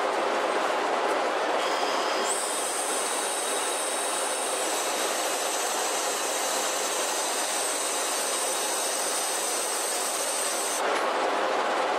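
Steady rushing noise of ship's machinery and wind on the deck of an anchor-handling vessel, with a high steady hiss joining about two seconds in and cutting off near the end.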